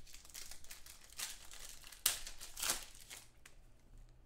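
Foil wrapper of a trading-card pack crinkling as hands tear it open and work the cards out, with a sharper crackle about two seconds in.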